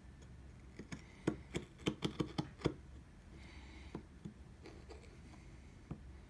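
Wood chisel chopping into a wooden blank: a quick run of about eight sharp taps in the first three seconds, then a short scrape and a few scattered taps.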